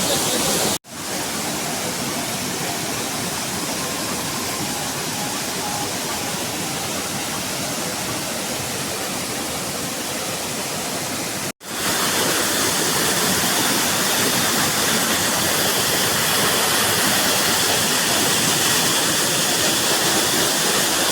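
Waterfall rushing, a steady noise of falling water. It drops out for an instant twice, about a second in and about halfway through, and is a little louder and hissier after the second break.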